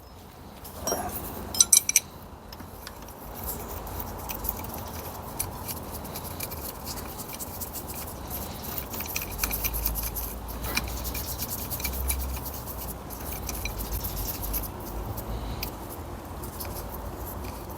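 Steady hiss of a gas torch flame heating the gearbox's fifth-gear hub, with scattered light metallic clicks and taps of tools.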